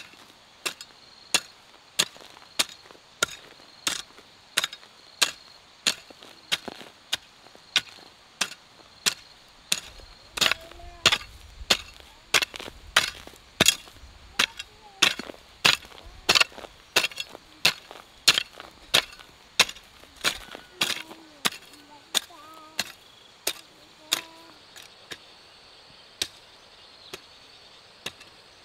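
A hand hoe chopping into loose, clumpy garden soil in a steady rhythm, about three strikes every two seconds. The strikes thin out near the end.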